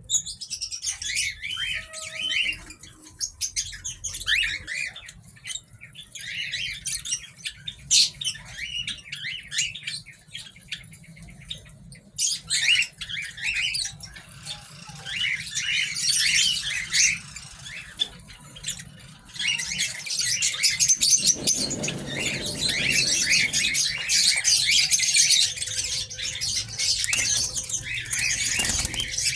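A flock of small cage birds chirping and chattering with many short, overlapping high calls, growing denser and more continuous about two-thirds of the way through.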